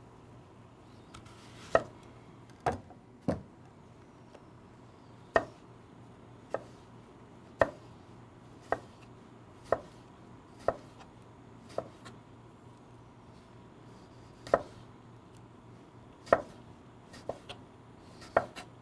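Chef's knife slicing an apple into wedges on a wooden cutting board. Each cut ends in a sharp knock of the blade on the wood, roughly one a second with a short pause midway.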